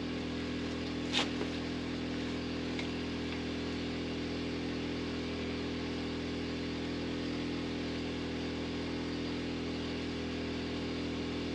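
Steady, even machine hum with no change in pitch or level, with a single light tap about a second in.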